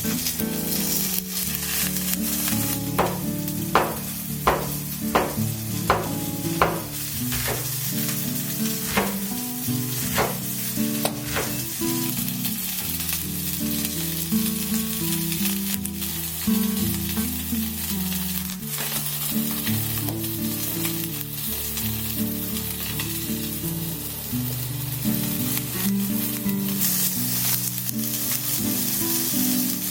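Mushrooms and salmon sizzling as they fry in butter in a pan and are stirred, with a run of sharp taps in the first third. Soft background music plays underneath.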